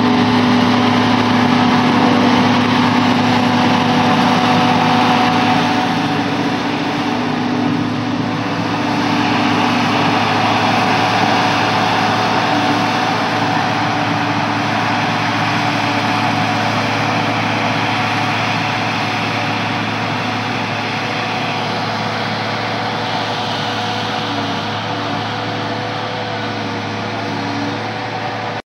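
Diesel engines of a John Deere tractor and a self-propelled forage harvester running steadily under load during silage harvest, with a steady engine hum and a hiss of machinery. The sound shifts about eight seconds in, where a brighter, hissier tone sets in.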